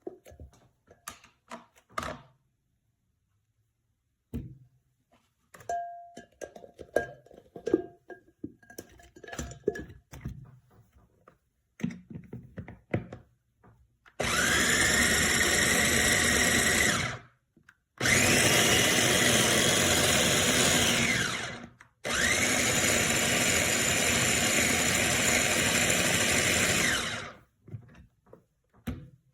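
Electric food chopper's motor running in three pulses of about three to five seconds each, each one winding up in pitch as it starts. About the first half holds clicks and knocks of the chopper being handled.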